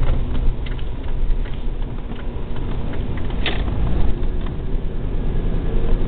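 Car driving on a snow-covered road, heard from inside the cabin: a low rumble of engine and tyres with scattered clicks and knocks, one sharper click about three and a half seconds in.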